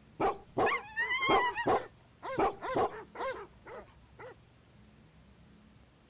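Dogs barking and baying: a run of about a dozen short barks, some with a rising-and-falling yelp, that stops about four seconds in.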